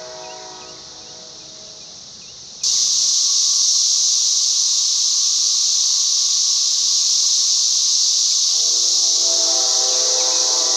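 A Nathan Airchime K5LA five-chime train horn's chord trails off. A couple of seconds later a loud, steady hiss starts abruptly, and near the end the horn's chord sounds again beneath the hiss.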